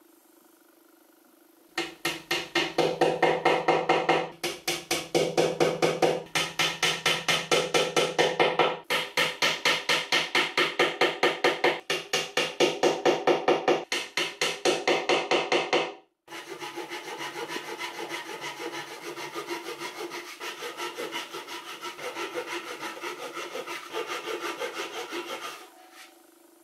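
Japanese handsaw flush-cutting wooden plugs in a chestnut board, in quick back-and-forth strokes of about four to five a second. The sawing starts about two seconds in, breaks off briefly about two-thirds through, then continues in steadier, slightly quieter strokes and stops shortly before the end.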